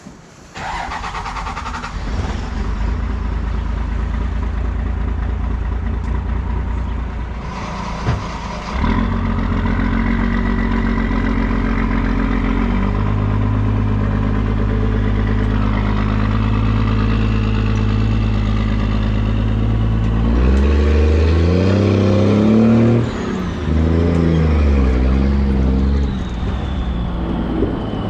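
A 1996 Cummins 5.9 12-valve six-cylinder diesel working under load while pulling through the gears, its engine note stepping to new pitches several times as it shifts. The engine is running on waste motor oil as fuel.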